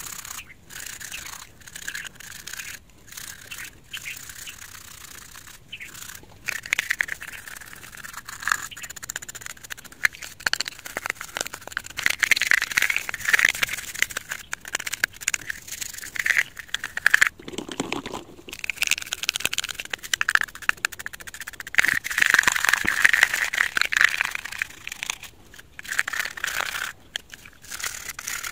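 Toothbrush bristles scrubbing wet plastic speaker parts: a scratchy rasp of quick back-and-forth strokes, with louder spells of harder scrubbing.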